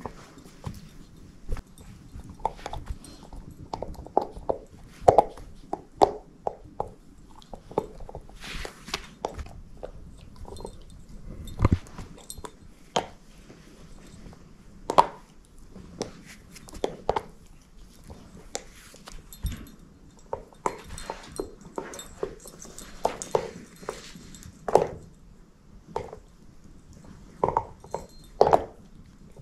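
A shepherd-mix dog chewing and gnawing a rope toy: irregular sharp clicks and crunches of teeth working the rope.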